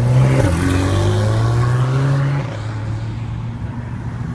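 Supercar engine accelerating under load, with a quick upshift about half a second in. The note climbs again, then drops back to a quieter, steady run about two and a half seconds in as the driver eases off.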